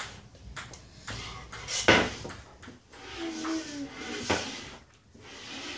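Ping pong ball in a rally, sharp clicks as it bounces on the table and is struck by paddles, about two a second in the first couple of seconds, with a louder hit about four seconds in.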